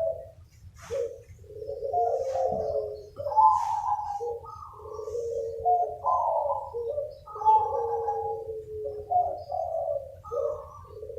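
Several zebra doves cooing over one another, their rolling trilled coos overlapping almost without a break. A few short faint high sounds come through in the first few seconds.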